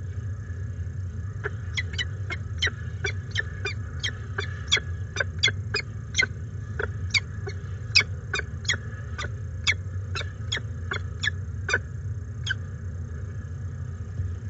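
Peregrine falcons calling during a feeding at the nest: a rapid series of short, sharp calls, two or three a second, starting about a second and a half in and stopping near the end, over a steady low hum.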